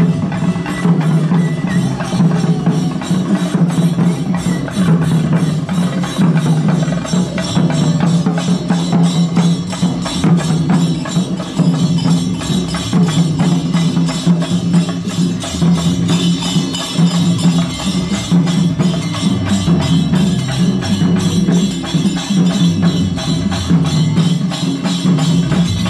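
A group of procession drums played together in a fast, continuous rhythm of dense sharp strokes, with a steady low drone underneath.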